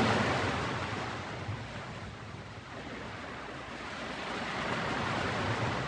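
Ocean surf washing: an even rushing noise that dies down about two seconds in and swells again toward the end.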